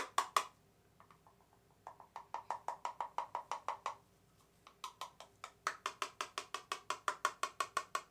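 Small mesh strainer being tapped quickly to sift gold mica onto the soap, light ticks about seven a second in three runs with short pauses near the start and about four seconds in.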